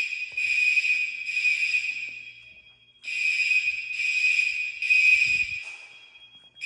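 Fire alarm bell ringing in the temporal-three pattern: three rings about a second apart, then a pause while the bell rings down. The pattern runs twice, with a third group starting at the very end. This is the standard evacuation signal.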